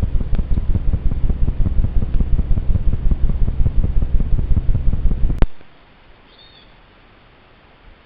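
Wind buffeting a trail camera's microphone in loud, rapid gusts, ending abruptly with a click about five seconds in. Then a faint steady hiss, with one short high bird chirp about a second later.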